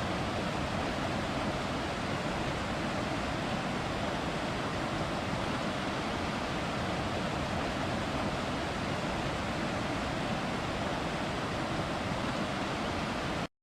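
Waterfall: falling water rushing in a steady, even wash of noise that cuts off abruptly near the end.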